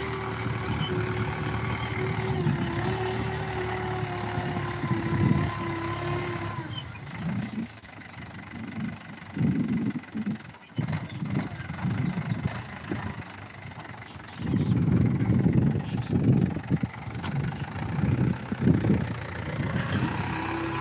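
Mahindra 475 DI diesel tractor engine running steadily under load as it pulls a tillage implement across a field. About a third of the way in the engine note fades and breaks up into irregular low rumbling bursts, then comes back steady near the end.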